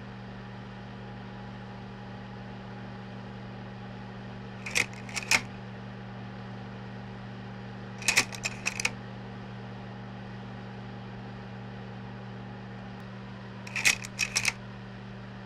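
Slide projector changing slides three times, each change a quick cluster of three or four sharp mechanical clicks, over a steady low hum and hiss.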